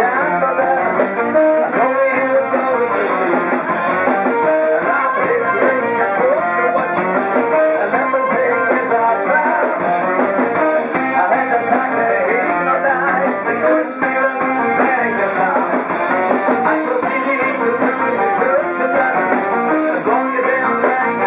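Live rock band playing an instrumental passage: electric guitars, electric bass, drum kit and tenor saxophone.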